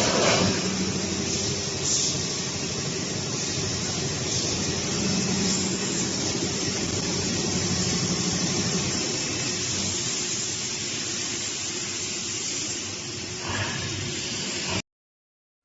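Steady hiss with a low mechanical hum of industrial machinery running, cutting off suddenly near the end.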